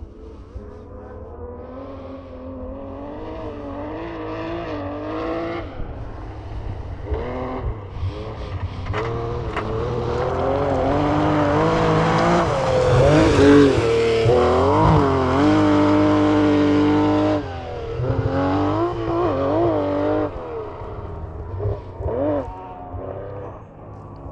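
Rally car engine approaching, revving hard and dropping in pitch at each gear change, loudest as it passes through the middle of the clip. It cuts off abruptly as the driver lifts, then revs again in short bursts as the car pulls away.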